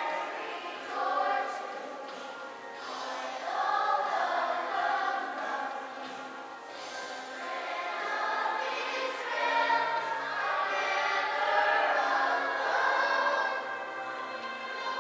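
A group of young voices singing together in chorus, a stage-musical song.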